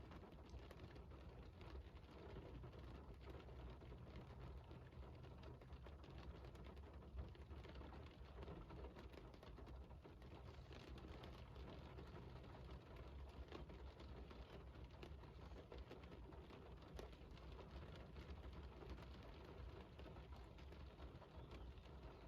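Faint, steady rainfall, with many scattered drops ticking and pattering.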